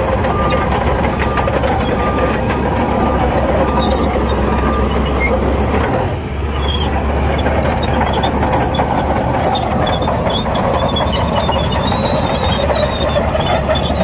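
Bulldozer's diesel engine running steadily under load. Its reversing alarm beeps for about the first five seconds. After a brief dip in the engine sound around the middle, high-pitched squeaks come in over the engine.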